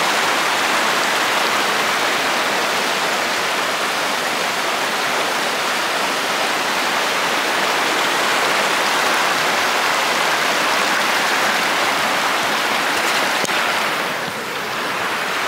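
Creek water rushing over shallow rapids: a steady rush that eases slightly near the end.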